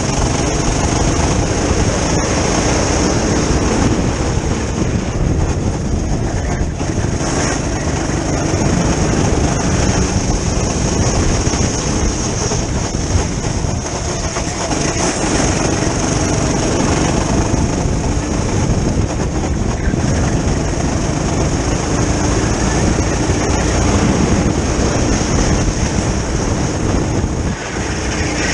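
Onboard sound of a rental kart at speed: its small engine running hard under heavy wind noise on the open kart, with a steady high-pitched whine throughout.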